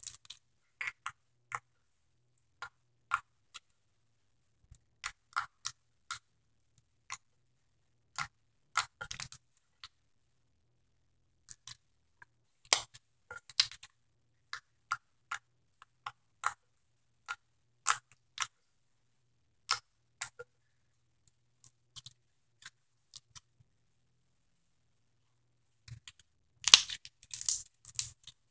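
Sticky, gooey slime squished, poked and stretched by hand, making scattered wet clicks and pops as its air bubbles burst, with a dense run of pops near the end.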